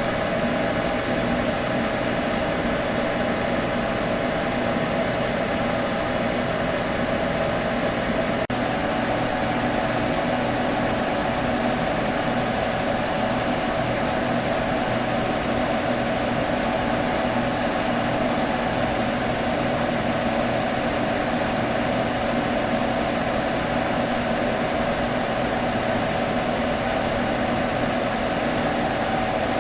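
A computer humming steadily: a constant whirring hum with a few held tones, broken by one very brief dropout about eight seconds in.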